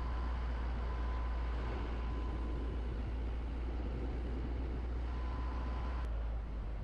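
Car driving, a steady low rumble of engine and road noise with a faint thin whine; the sound shifts slightly about six seconds in.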